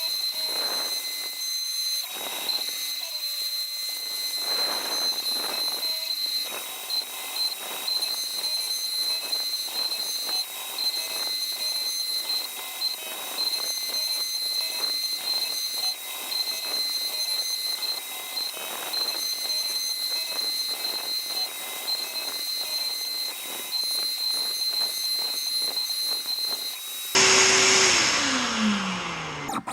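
400W spindle on a MillRight CNC M3 desktop router cutting hardwood: a steady high whine, broken off and resumed again and again, over the gritty noise of the bit chipping the wood. Near the end the whine stops and a louder sound with a falling tone takes over.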